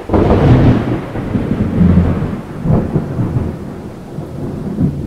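Thunder, likely a sound effect: a sudden loud clap followed by a long low rolling rumble that swells again about two seconds in and slowly fades.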